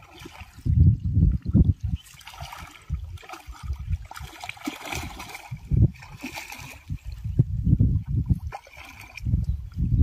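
A large hooked fish, a rohu, thrashing and splashing at the water's surface while being played on a pole rod. The splashing comes in bursts through the middle, with a low rumble on the microphone before and after.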